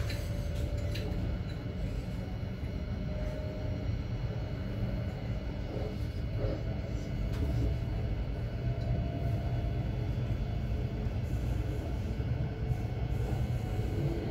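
Thameslink Class 700 electric train running, heard from inside the carriage: a steady low rumble of wheels on track with faint steady tones above it, and a few light clicks about a second in.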